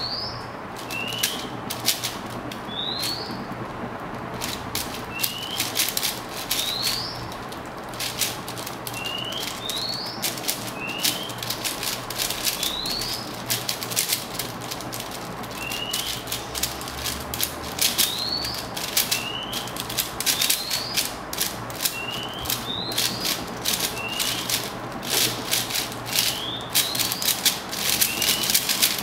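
A 4x4 speedcube being turned fast by hand: a dense, irregular clatter of plastic layers clicking. Over it, a bird repeats a short rising chirp every second or two.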